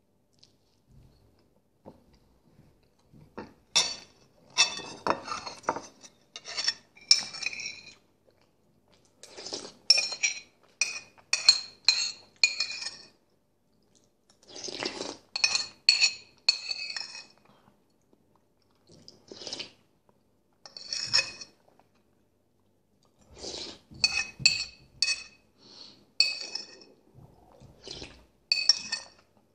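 Metal spoon clinking and scraping against a ceramic soup bowl while scooping chicken broth with potatoes. The clinks come in quick runs of several strikes with short pauses between, each with a brief ring from the bowl.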